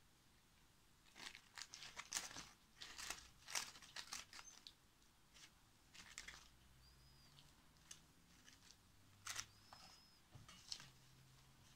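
Faint, irregular rustling and crinkling of dry leaves, papery Chinese lantern husks and newspaper as hands handle and arrange them, in a cluster of short crackles in the first few seconds and a few more later.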